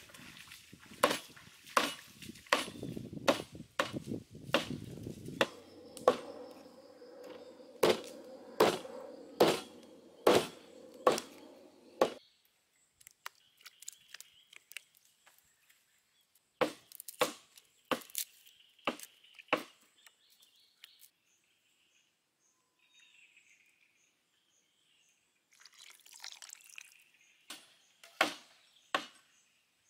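Cleaver chopping raw Muscovy duck on a wooden chopping board: a steady run of sharp chops, a little more than one a second. The chopping stops about twelve seconds in, gives a short burst of a few more chops, and after a quiet stretch starts again near the end.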